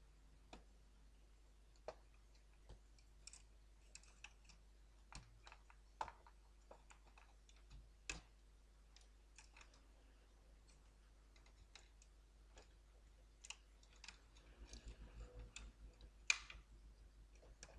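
Faint, scattered clicks and taps of a computer motherboard being handled and set into the metal chassis of an all-in-one PC, with a quick run of small taps and one sharper click near the end.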